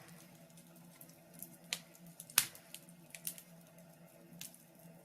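Faint crackling of a wood fire in a fireplace: a few scattered pops and snaps, the sharpest about halfway through, over a faint steady hum.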